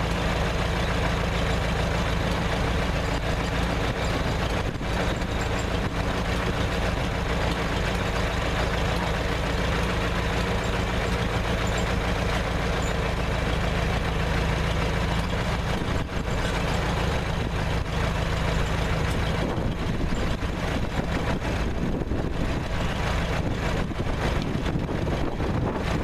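1948 Farmall H's four-cylinder gasoline engine idling steadily; its sound changes about three-quarters of the way through.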